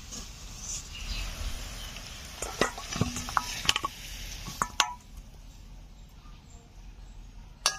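Chicken sizzling in a hot steel karahi while a metal spatula scrapes and knocks against the pan, with several sharp clinks in the middle; the sizzle dies down after about five seconds as the pan is taken off the clay stove.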